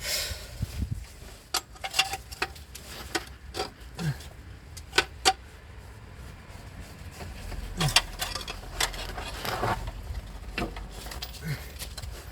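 Irregular sharp metallic clicks and clinks of a heavy flywheel, its bolts and hand tools being handled while it is fitted onto the engine, over a low steady background rumble.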